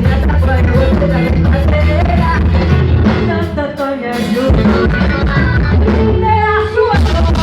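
Forró song played by a band with a sung vocal line over a heavy bass; the bass drops out briefly about halfway through.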